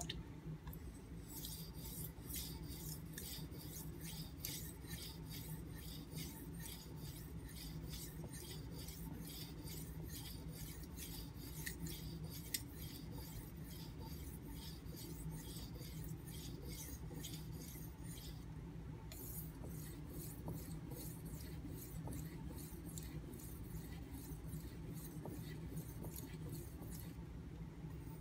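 Steel knife blade stroked back and forth across a fine 4000-grit Nubatama whetstone, a rhythmic scrape about two to three strokes a second, with brief pauses a little past halfway and near the end.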